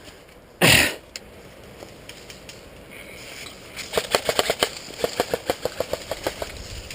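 Airsoft electric rifle firing a quick string of shots, about seven a second, for a couple of seconds. Earlier, under a second in, a short loud falling vocal cry.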